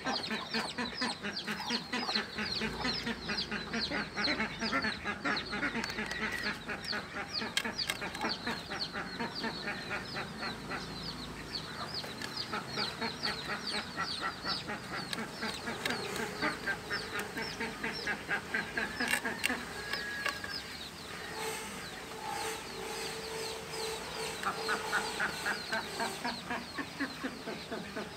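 Domestic fowl calling: a fast, steady run of short cheeps, with a few longer, lower calls in the second half.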